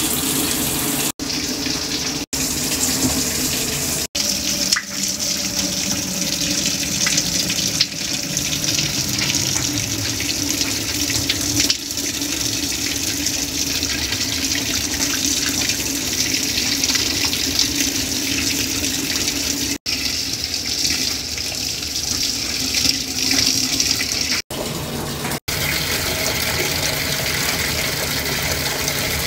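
Water running steadily into a top-loading washing machine drum as it fills, broken by several abrupt cuts between clips.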